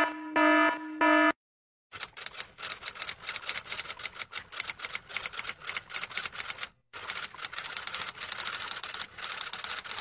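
Rapid, uneven clicking of keys being typed on a keyboard, starting about two seconds in with a brief break near seven seconds. It is preceded by three short electronic beeps, about two a second, that end just after the first second.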